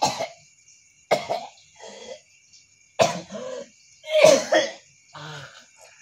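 A man coughing harshly and clearing his throat, in about five fits roughly a second apart.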